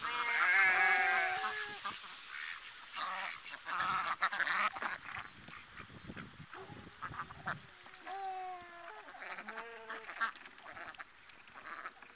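Indian Runner ducks quacking. A loud run of calls comes at the start and another about eight seconds in, with shorter, softer calls between.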